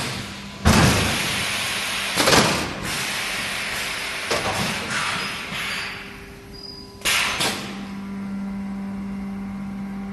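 EPS 3D sandwich panel welding machine running: a steady electrical hum under four loud bursts of noise with clatter, spaced irregularly a second or more apart.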